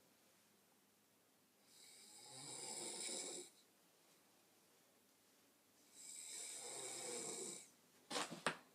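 A sleeping woman snoring: two long snores about four seconds apart, each lasting nearly two seconds, with quiet breathing pauses between. Near the end, two sharp clicks are the loudest sounds.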